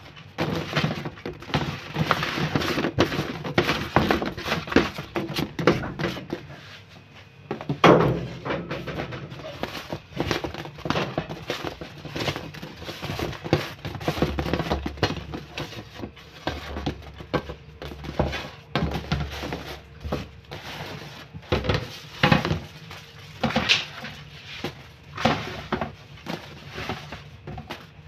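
Soft baked bread rolls being dropped by hand and tipped off a metal baking tray into a plastic basket: irregular soft thuds, knocks and rattles of the tray against the plastic crate.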